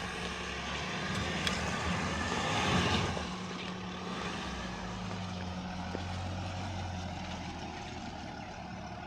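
Land Rover Defender 130 running at low speed while crawling over off-road climbs and descents, the engine and drive noise swelling a little around two to three seconds in, then settling to a steady drone.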